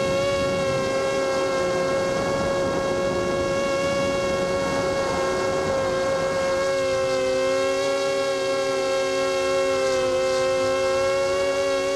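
Small FPV quadcopter's electric motors and propellers whining steadily in flight, the pitch wavering slightly as the throttle changes, with a rushing noise underneath for the first half.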